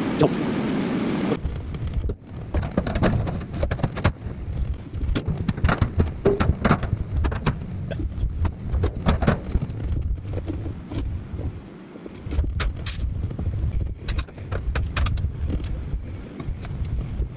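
Workshop sounds played back eight times fast. A steady hiss cuts off about a second and a half in, followed by a rapid, irregular jumble of clicks, knocks and clatter from tools and metal parts being handled.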